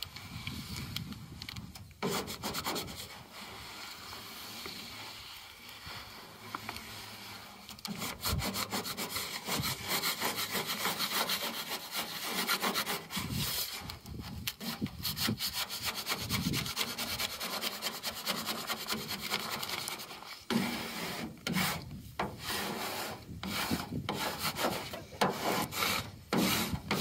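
A plastic squeegee rubbing a vinyl paint-mask stencil flat against a truck's steel door, in quick back-and-forth scraping strokes. The strokes run thick and fast from about eight seconds in, then come in shorter separate spells after about twenty seconds.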